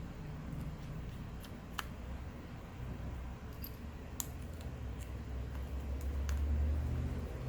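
Scattered light clicks and ticks of small metal screws and a small Phillips screwdriver being handled and driven into a phone's internal bracket, over a low steady hum.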